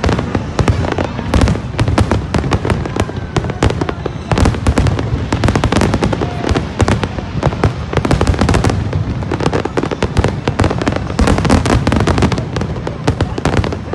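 Large fireworks display: a dense, continuous barrage of bangs and crackling shell bursts over a heavy low rumble, with no let-up.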